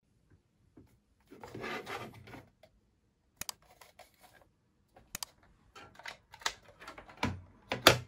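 Handling noise from a plasma spindle lamp's hard black plastic base: a short rustle as it is picked up and turned over, then a string of sharp clicks and knocks against a wooden desk as it is put back down, the loudest near the end.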